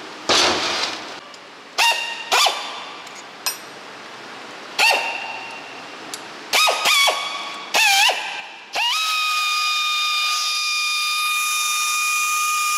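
Pneumatic straight die grinder triggered in short bursts, each spinning up into a high whine. From about nine seconds in it runs steadily at a constant high pitch, grinding in the valve bores of a cylinder head. There is a short burst of noise near the start.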